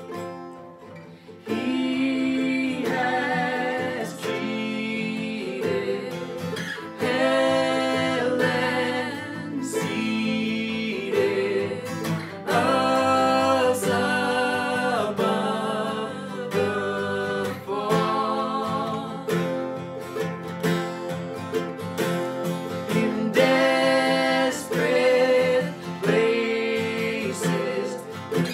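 A man and a woman sing together, accompanied by an acoustic guitar and a ukulele. The instruments play alone for a moment before the voices come in about a second and a half in.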